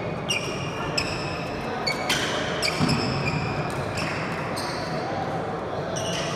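Badminton rally on a wooden indoor court: sneakers squeak sharply on the floor again and again, with the crack of racket hits on the shuttlecock.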